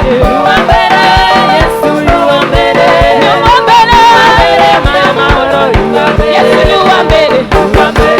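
Live African gospel praise-and-worship music with a steady drum beat, keyboard and singing voices.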